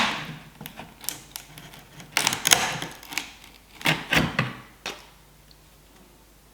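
Workshop hand-work clatter: a sharp knock, then two short bursts of quick clicking and rattling of tools and wood, stopping about five seconds in.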